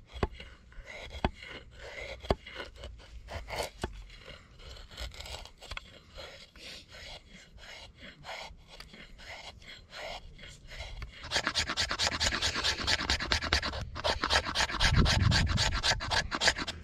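A hand axe blade, and later a knife, shaving thin curls off a stick of wood: a run of short scraping strokes that grow louder and quicker about eleven seconds in.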